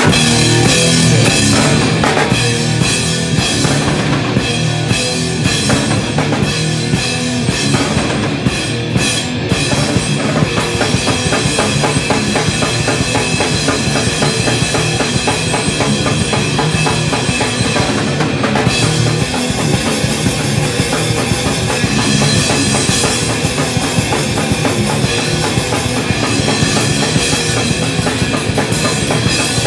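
Rock band demo recording: a full band playing loud at a fast, driving pace, with a pounding drum kit, bass drum and crashing cymbals. The music shifts to a new part about eighteen seconds in.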